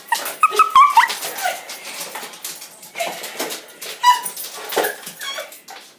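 Small dog making short, high whines and yips as it plays excitedly with a toy, amid scuffling and sharp clicks.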